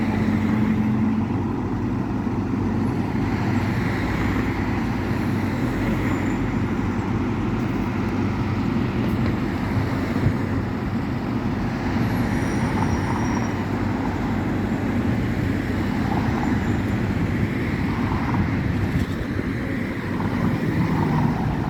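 Car driving along a road: steady engine and tyre noise.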